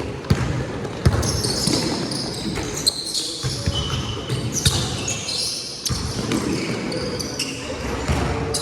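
Basketball game on a gym court: the ball bouncing on the floor in repeated thuds, with short high squeaks of sneakers on the court.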